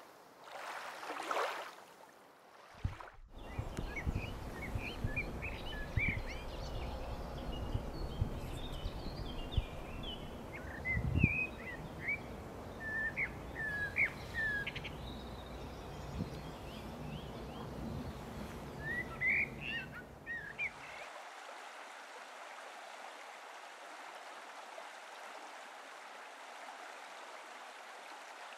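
Small birds chirping in short, scattered high calls over a low rumble of wind on the microphone. About three-quarters of the way through, the rumble cuts off and a steady rush of running water takes over.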